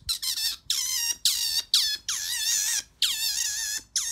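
An otter squealing over and over, a series of high-pitched calls about two a second, each dropping in pitch at its start and then wavering.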